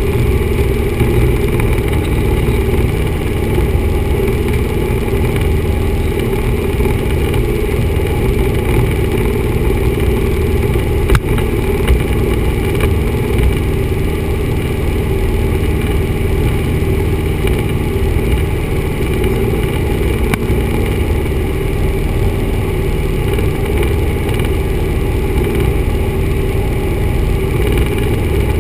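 Steady drone of a 1974 Cessna 172's four-cylinder piston engine and propeller in flight, heard inside the cockpit. A single short click about eleven seconds in.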